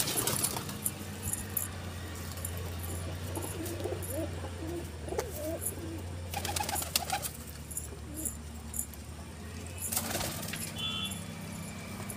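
Domestic pigeons cooing, a string of low wavering coos clustered in the middle, over a steady low hum. A couple of brief noisy bursts come through a little past halfway and again near the end.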